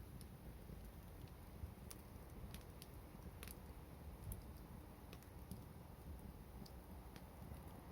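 Wood fire burning, with faint, scattered sharp crackles and pops over a steady low rumble.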